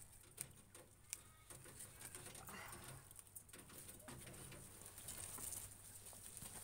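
Faint rustling and a few sharp snaps of sugar snap pea vines being pulled and picked from their stake by hand.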